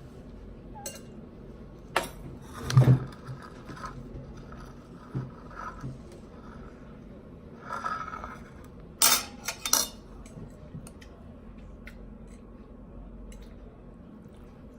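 Dishes and cutlery clinking and scraping in irregular handling sounds, with sharp clatters loudest about three seconds in and again around nine to ten seconds in.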